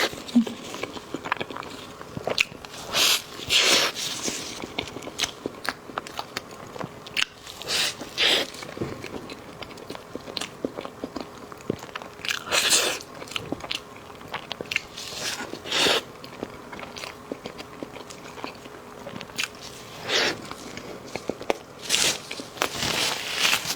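Close-miked eating of dessert: bites and chewing with many small wet mouth clicks, and louder crunchy bursts every few seconds.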